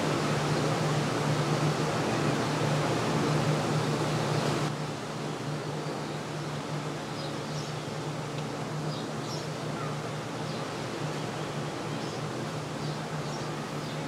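Steady outdoor background noise with a low hum. About five seconds in it drops in level, and faint short high chirps come now and then.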